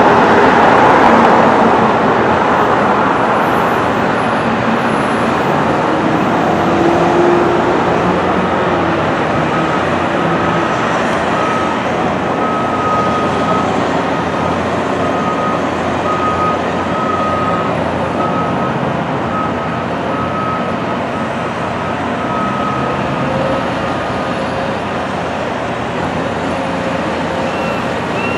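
Caterpillar hydraulic excavators' diesel engines running under load, a steady dense rumble. A faint, broken high whine sits over it through the middle stretch.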